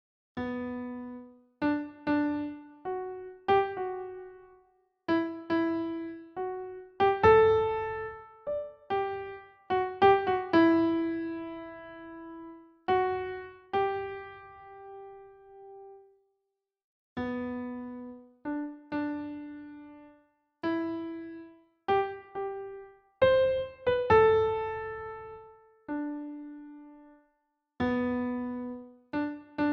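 Slow, gentle piano melody of single notes, each left to ring and fade, in phrases with short pauses between them.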